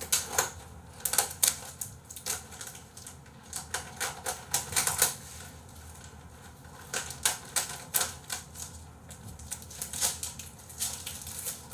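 Typing on a computer keyboard: irregular runs of sharp key clicks with short pauses between them.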